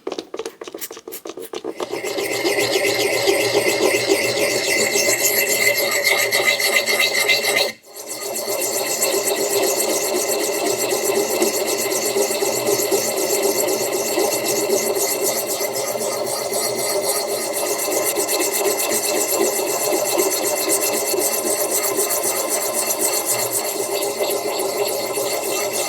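Extra-coarse diamond hone scrubbing rapidly and continuously against the steel bit of an axe, a rasping scrape, with a few short clicks before it starts and a brief pause about eight seconds in.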